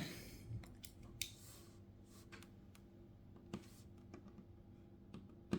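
Faint, scattered clicks and taps of small repair tools on an iPhone 7's internal parts and screws, with one sharper click near the end.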